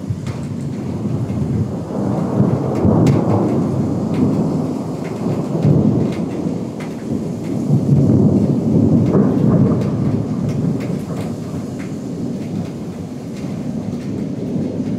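Thunder rumbling in long rolls over falling rain. It swells about two seconds in and again from about six to ten seconds in, with scattered raindrop ticks throughout.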